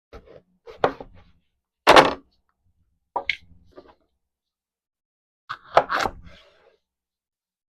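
A few separate knocks and clunks of kitchen items being handled and set down on a counter, the loudest about two seconds in.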